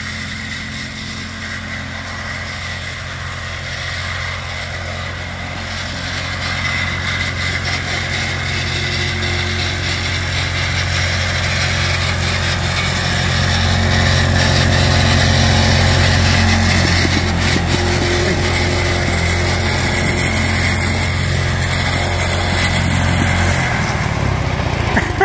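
Duromax 208cc single-cylinder engine on a lawn-tractor go-kart running steadily at speed, governor removed and a rev-limiting ignition coil fitted. It grows louder as the kart drives closer, and the engine note drops near the end as it slows.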